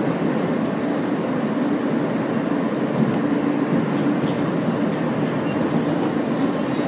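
Ride noise heard from inside an R160 subway car running along the track: a steady rumble of wheels on rail with a low, even hum.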